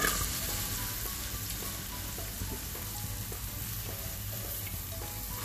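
Finely chopped onion going into hot oil in a pressure cooker and sizzling. The sizzle flares up right at the start, then settles into a steady frying hiss.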